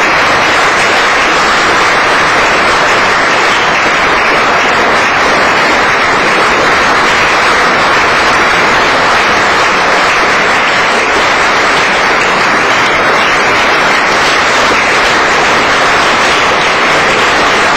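Audience applauding steadily and densely, a continuous even clatter of many hands clapping at the close of a concert performance.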